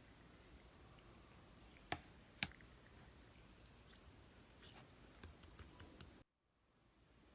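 Clear slime being worked by hand, giving faint sticky clicks and pops, with two sharper pops about two seconds in and a run of small clicks near the end.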